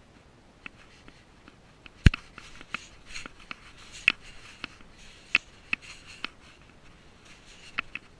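A cat's paws and claws on the stretched plastic wrap of hay bales as it walks, making irregular sharp clicks and crackly rustling, loudest about two seconds in.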